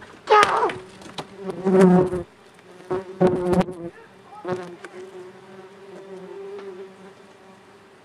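Bees from a disturbed hive buzzing around the microphone: several loud close fly-bys with swooping pitch in the first four seconds, then a steady swarm hum.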